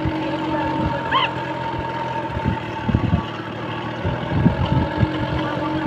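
Engine of the vehicle following the bullock cart running steadily, with a few soft knocks and a short rising call about a second in.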